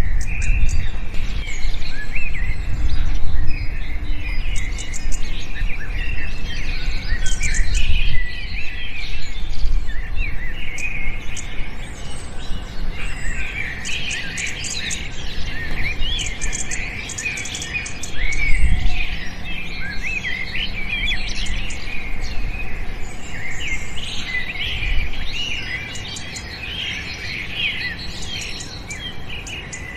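Many small birds chirping and twittering together in a dense chorus of quick, high chirps, over a low rumble that swells now and then.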